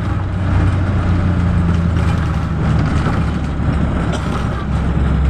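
Steady low drone of a road vehicle's engine with road noise, heard from inside the moving vehicle.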